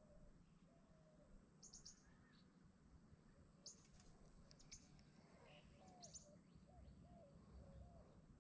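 Near silence with faint bird chirps: a few quick clusters of high chirps every second or two, and some soft, short lower whistled notes.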